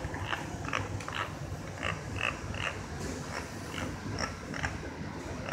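Riding inside a Cleveland RTA Red Line rapid-transit car creeping along at about 5 to 10 mph: a low steady rumble with frequent short squeaks and creaks, two or three a second.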